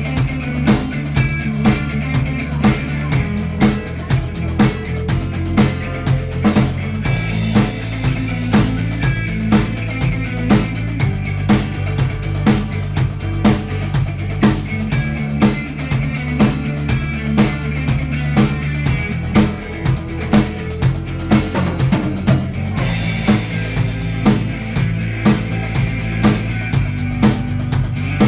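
Instrumental break of a rock song: a drum kit keeps a steady beat of about two hits a second, with bass drum and snare, over a sustained bass line.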